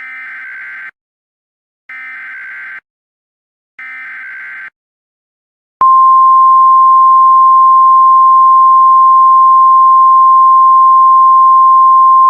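Emergency Alert System alert opening: three short SAME header data bursts about a second apart, then, about six seconds in, the EAS attention tone starts as a loud single steady tone and holds.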